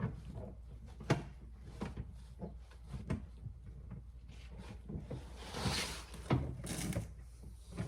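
Scattered light clicks and knocks, with a brief scraping rustle about six seconds in: hands working inside a car door, reconnecting the lock lever rod to the outer door handle.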